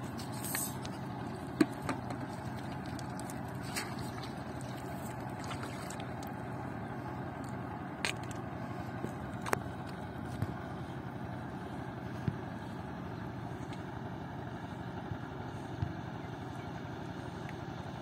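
Steady low drone of a boat engine running on the river, with a few short clicks and knocks scattered through it.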